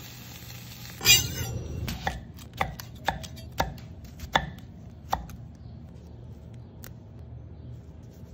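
Knife chopping on a cutting board: about six sharp strikes, roughly half a second apart. They follow a loud, brief sound with a wavering pitch about a second in.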